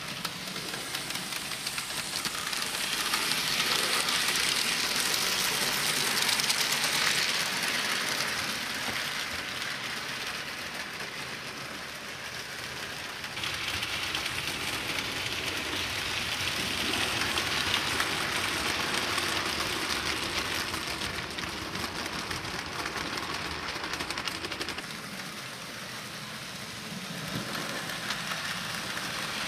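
HO-scale model goods train running along the track: a steady rattling noise from the wheels on the rails. It grows louder twice as the train comes close.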